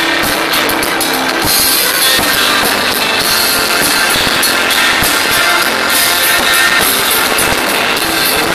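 Rock band playing live, drum kit and electric guitars, in a loud, dense mix recorded on a mobile phone with poor sound.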